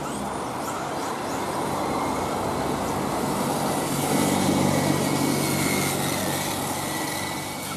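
1/10-scale electric RC touring cars running on a wet track: a thin high motor whine over a steady hiss, growing louder as a car passes close about four to five seconds in.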